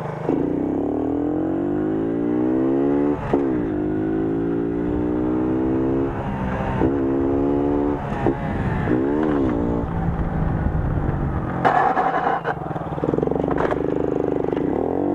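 Moped's small two-stroke engine revving, its pitch climbing and dropping again and again as the throttle is worked. About twelve seconds in, a harsh grinding scrape cuts in for under a second as the rear of the moped drags on the asphalt during a wheelie.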